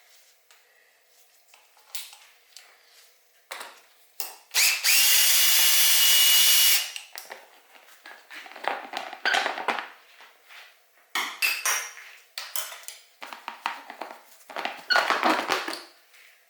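A power drill spinning for a little over two seconds, its whine climbing as it starts, as a bolt comes out during the teardown of a motorcycle's bodywork. Around it come irregular knocks and rattles of tools and parts being handled.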